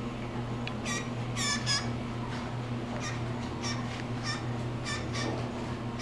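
Blue jay giving a quick series of short calls, roughly one or two a second, over a steady low hum.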